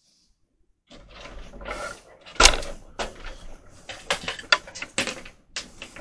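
Clicks, knocks and rattles of hardware being handled inside a desktop PC case during a power supply swap, starting about a second in, with one loud knock about two and a half seconds in.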